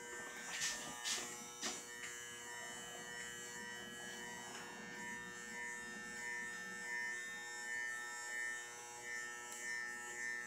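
Corded electric hair clippers buzzing steadily during a haircut, the hum pulsing slightly in a regular rhythm. There are a few sharp clicks in the first two seconds.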